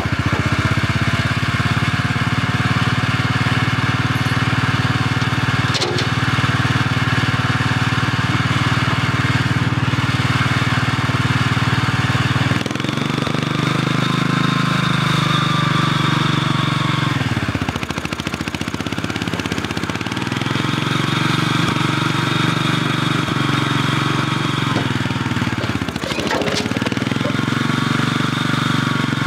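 Small mini loader's engine running steadily. Its note shifts as the hydraulics are worked, sagging and recovering twice in the second half as the loader arms are raised. There are two sharp clicks, one early and one near the end.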